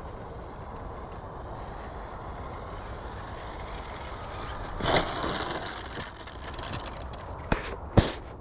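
Wind rushing steadily on the microphone while a Multiplex FunCub RC plane lands on grass, with a brief rustling thump about five seconds in as it touches down. Two sharp knocks come near the end.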